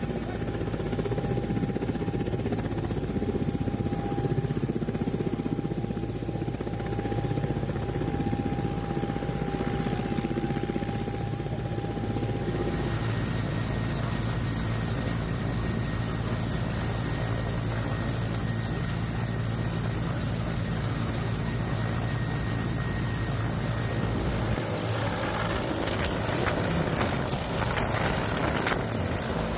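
Military transport helicopter running on the ground with its rotors turning, a steady engine and rotor noise. The sound changes abruptly about halfway through.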